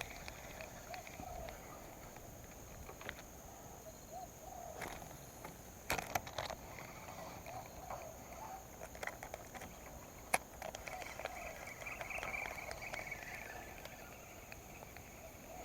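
Outdoor ambience with repeated faint wavering animal calls, over a steady high hum, and a few sharp clicks around six and ten seconds in.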